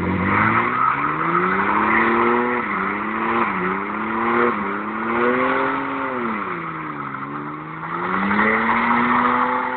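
Holden Commodore doing a burnout: the engine revs up hard and is held high, its pitch dipping and climbing again several times, over the continuous squeal of the rear tyres spinning.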